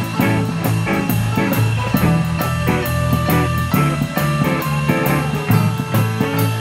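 A small live band of two guitars and an electric keyboard playing an upbeat song, with a steady bass line and a light ticking beat about four times a second.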